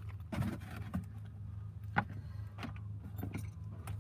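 Small objects being handled and rummaged through in a cardboard box: scattered clicks and light rattles, the sharpest about two seconds in, over a steady low hum.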